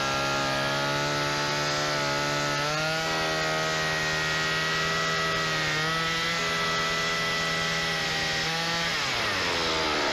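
Gasoline chainsaw's two-stroke engine running at steady high speed. Its pitch steps up about three seconds in, then falls away near the end as the engine slows.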